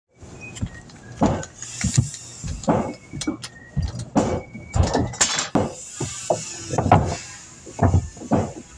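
Irregular knocks and thuds of work boots on a plywood deck surface and of lumber being handled, a few every second.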